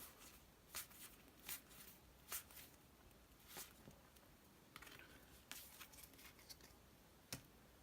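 Near silence broken by about seven faint, short clicks and rustles of trading cards being handled and flicked through.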